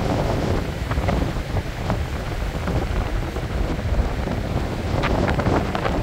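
Strong wind buffeting the microphone in a steady low rumble, over a stormy sea's waves breaking on the sandy shore.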